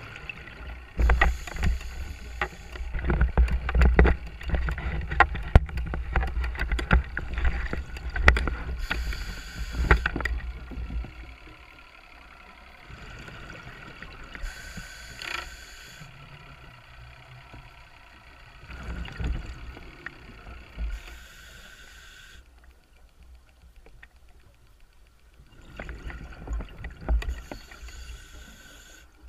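A scuba diver's breathing heard underwater through the camera housing: a hissing inhalation through the regulator every six seconds or so, and rumbling, crackling bursts of exhaled bubbles. The bubbles are heaviest in the first third and come again twice near the end.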